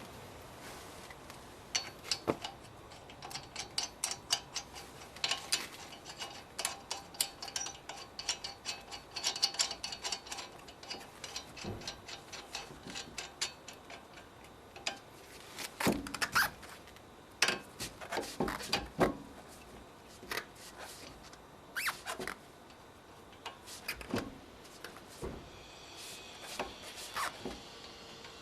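Hand tools working on a car wheel during a tyre change: runs of rapid metallic ticking and clicking, then scattered clanks and knocks.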